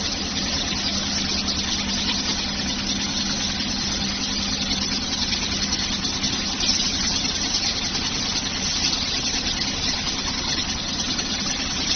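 Quilting machine for coats running steadily, a continuous mechanical hum with a low steady drone.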